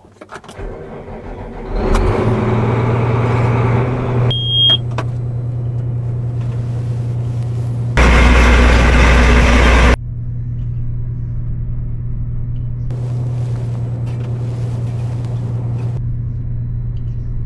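A combine harvester's diesel engine starts about two seconds in and runs steadily. A short high beep sounds about four seconds in, and the engine is louder for about two seconds around eight seconds in.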